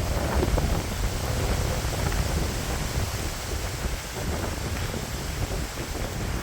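Strong wind gusting and buffeting against the microphone, with a steady rushing hiss of wind and rain, as a severe thunderstorm arrives.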